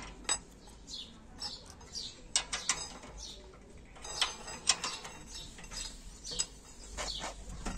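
Irregular metallic clicks and scrapes of a hand wrench working on a brake caliper's bolts as they are tightened.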